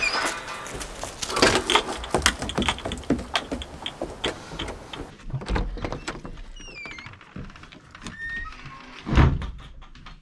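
Wooden cabin door being handled and opened, with a run of clicks and knocks and one heavy thump about nine seconds in.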